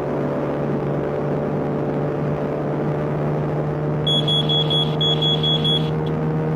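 Steady motor-vehicle engine drone, with a quick run of short high electronic beeps about four seconds in that lasts about two seconds.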